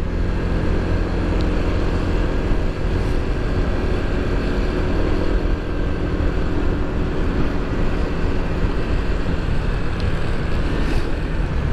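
Motorcycle running at a steady riding speed, its engine hum mixed with wind and road noise, heard from the rider's helmet camera.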